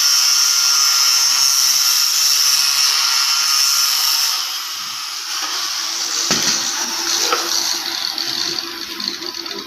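High-speed handheld grinder working on stainless steel with a steady high whine that eases off about four seconds in. After that come scattered clicks and knocks of metal being handled.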